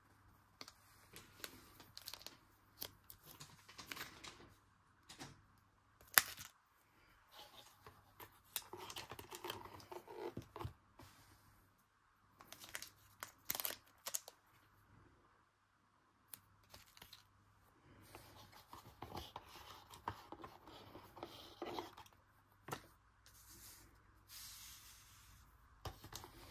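Foil trading-card booster pack being torn open and crinkled in the hands, with papery rustling and scattered sharp taps as cards and packaging are handled. A sharp tap about six seconds in is the loudest sound.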